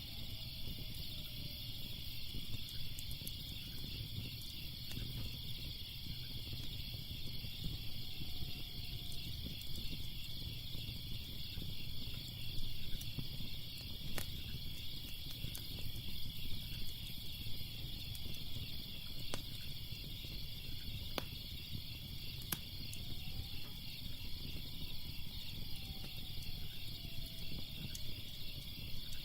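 A steady, rapidly pulsing chorus of crickets, with a fire crackling underneath and giving a few sharp snaps and pops.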